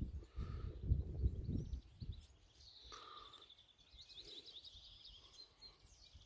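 Low rumbling bumps on the microphone for the first two seconds, then a small songbird's quick high trilling song, a long run of rapidly repeated notes.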